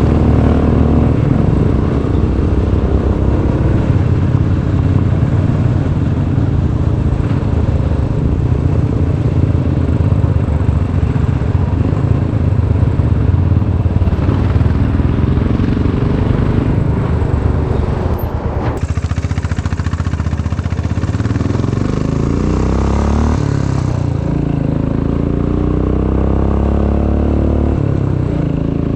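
Royal Enfield Classic 500's single-cylinder engine running under way, the rider accelerating and changing gear. The pitch climbs and falls with the revs, drops off briefly a little past two-thirds through, then rises again in steady sweeps.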